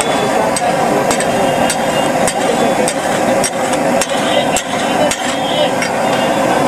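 A metal spatula and masher scraping and knocking on a large flat griddle while pav bhaji is mashed, with sharp metal-on-metal clicks every half second or so over a steady sizzling hiss.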